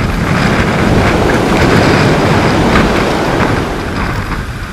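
Heavy storm surf crashing and washing over jetty rocks, with strong wind buffeting the microphone. The roar swells in the first second and eases near the end.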